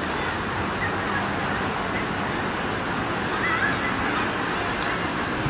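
Steady rush of splashing fountain water, with a few faint, short, high chirps over it.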